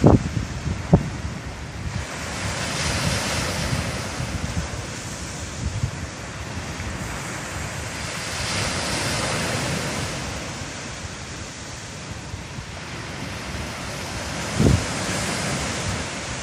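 Sea waves washing ashore, the hiss swelling and falling back about every six seconds, with wind buffeting the microphone. A brief thump near the end.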